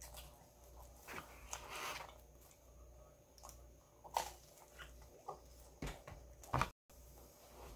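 Close-up mouth sounds of a person eating a P'Zone, a folded, baked pizza pocket: chewing, lip smacks and bites into the crust, with a few sharp wet clicks, the loudest about four seconds in and again near the end.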